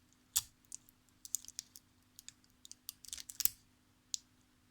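Irregular light clicks and taps of small items being handled on a workbench, with a faint steady hum underneath.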